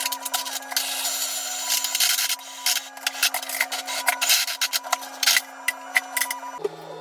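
Ridgid K9-12 FlexShaft drain cleaner's spinning cable and chain knocker rattling and scraping inside a clogged urinal drain, a harsh rasp full of rapid clicks.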